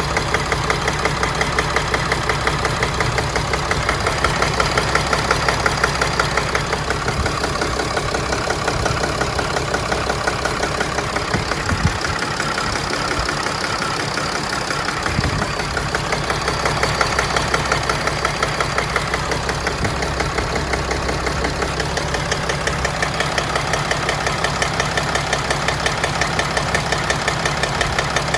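2011 Mercedes Sprinter van engine idling roughly, with a steady, evenly repeating pulse: the rough-idle problem, shown alongside a pending P2610 code.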